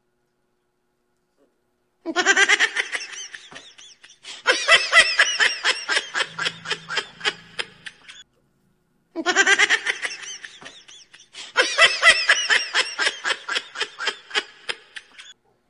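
High-pitched laughter in four long bursts of quick ha-ha pulses, starting about two seconds in.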